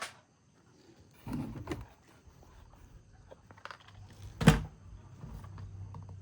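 Handling noises, most likely toy vehicles or their packaging being handled: a few knocks and clatters about a second and a half in, then one sharp, loud clack about four and a half seconds in.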